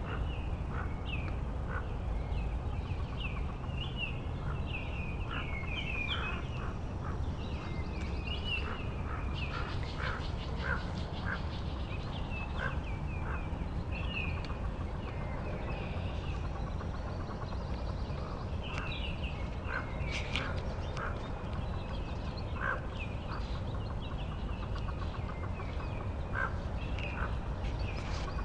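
Hooded merganser ducklings peeping in a rapid, overlapping chorus of short, high peeps, with short lower clucks among them, over a steady low rumble.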